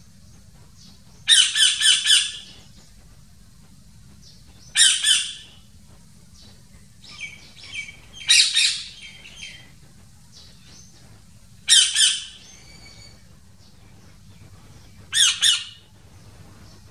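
A parrot calling: five loud calls a few seconds apart, each lasting about half a second to a second, over a faint low hum.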